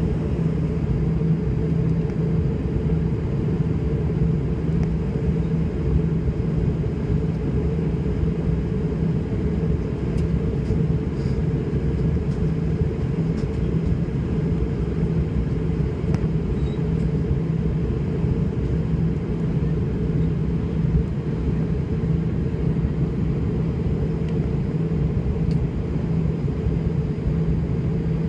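Steady low drone of an airliner cabin in flight: engine and airflow noise, heavy at the low end with an even hum inside it, unchanging throughout.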